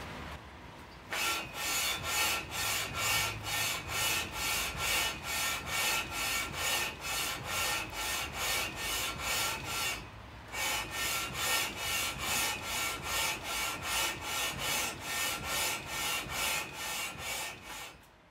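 Aluminum cylinder head being slid back and forth by hand over 80-grit sandpaper on a flat table saw top, rasping rhythmically at about two strokes a second, with a brief pause about ten seconds in. This is the hand-lapping that flattens and resurfaces the head's gasket face.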